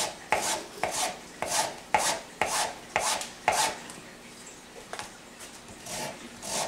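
Lemon being zested on a rasp grater: short scraping strokes about two a second, which pause for a couple of seconds and pick up again near the end.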